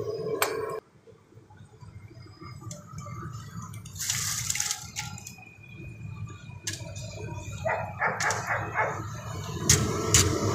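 A loud sound cuts off suddenly just under a second in. A short hiss comes about four seconds in. Near the end, hot oil bubbles loudly in a deep kadhai and water splashes in a bucket.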